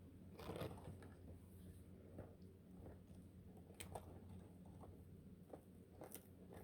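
Iguana biting and tearing at a large collard green leaf: faint, irregular crunching bites, about one a second.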